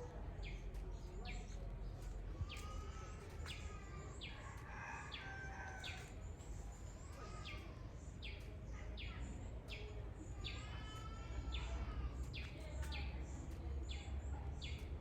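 Birds calling: a steady run of short, high chirps falling in pitch, about two a second, with a few longer, lower calls mixed in, over a steady low rumble.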